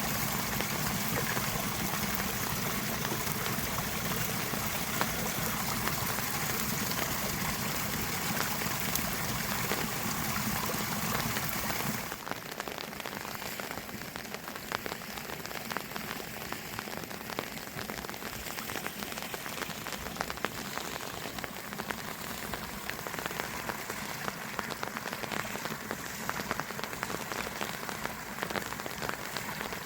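Steady rain falling on a surface, a dense even hiss. About twelve seconds in, a deeper rumble under it cuts out, and the rain goes on lighter, as many small ticks.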